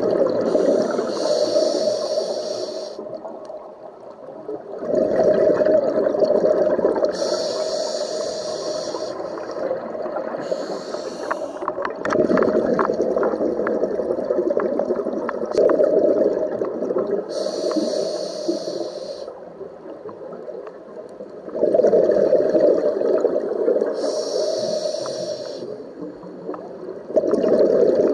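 Scuba regulator breathing underwater: each inhalation is a short high hiss through the regulator, and each exhalation a long, loud rush of bubbles. The cycle repeats about every five to six seconds, about five breaths.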